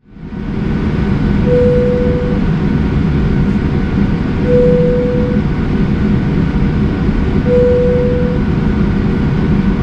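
Jet airliner's engines running, heard from inside the cabin as the plane starts accelerating for takeoff: a steady, loud rumble. A short tone sounds about every three seconds over it.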